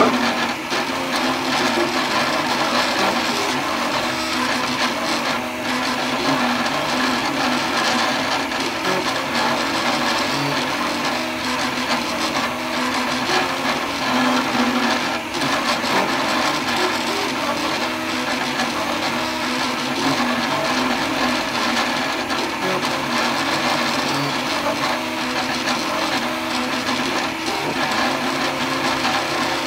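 A homebuilt 3D printer running a print: its stepper motors whine in quickly shifting tones as the belt-driven print head moves back and forth along its rods, over the steady whir of the print-head cooling fan.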